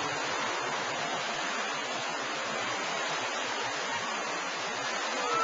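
Steady rushing and washing of water in a wave pool as waves roll across it.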